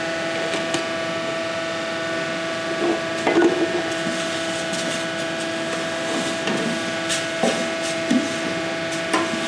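A steady machine hum with fixed pitches, with scattered scrapes and knocks of a spoon stirring a large pot of frying rice; the scrapes and knocks cluster about three seconds in and again around seven seconds.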